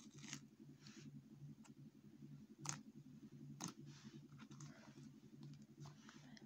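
Faint sticky clicks and crackles of butter slime being pressed and pulled by hand on a glossy book cover, scattered through, with two sharper clicks near the middle. A low steady hum runs underneath.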